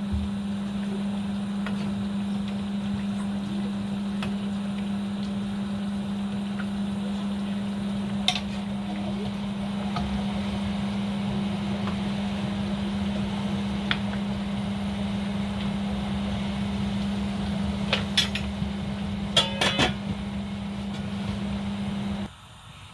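A kitchen appliance's motor humming steadily with a constant low tone, a few sharp clicks and knocks along the way, then switched off abruptly near the end.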